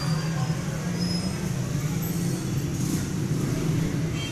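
A steady low mechanical hum, even in level throughout.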